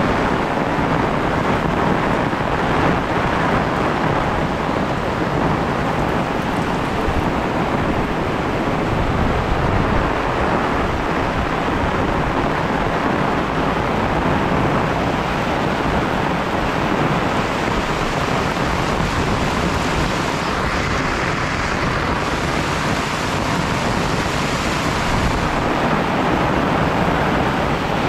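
Heavy rain falling steadily, a dense even hiss of downpour on the ground and surfaces.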